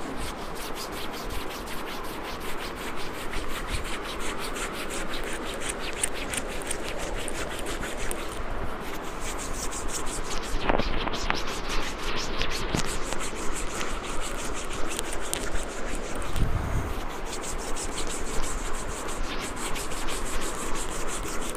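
Hands rubbing rapidly back and forth across a person's back over a cotton T-shirt in quick, even strokes: the neurotherapy 'aari' (hand-saw) stroke done with the edges of the hands.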